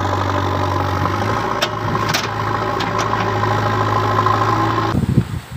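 JCB 3DX backhoe loader's diesel engine running steadily while the backhoe arm digs, with a few sharp knocks in the middle. The engine sound cuts off abruptly near the end.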